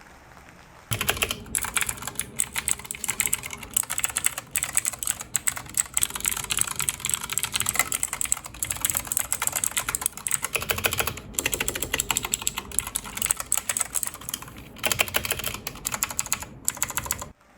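Fast typing on a Redragon Kumara mechanical keyboard fitted with Akko CS Rose Red switches: rapid key clicks and keycap clatter in long runs with a few brief pauses, starting about a second in and stopping just before the end.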